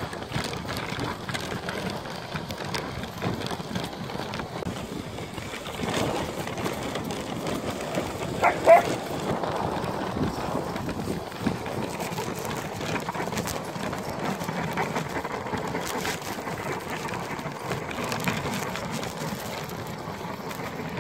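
Dog sled running over a packed snow trail behind a team of huskies: a steady hiss of the runners and paws on snow, with one short high dog yip about nine seconds in.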